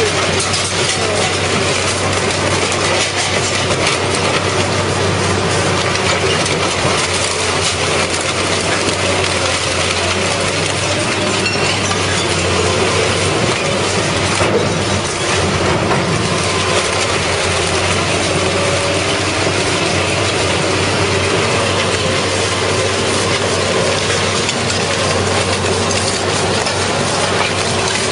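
Industrial car shredder running: a loud, steady, dense noise over a constant low hum, unbroken throughout.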